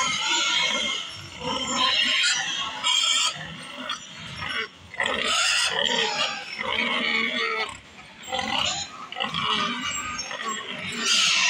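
Pigs in a sow house vocalizing in irregular loud bursts, with a boar in the alley in front of sows penned in stalls, during boar exposure to bring the sows on heat.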